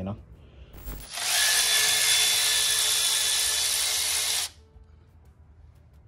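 Cordless power ratchet running in one steady burst of about three and a half seconds, with an even whine that starts and stops abruptly, as it spins out the ignition coil bolts on a BMW S50 inline-six's valve cover.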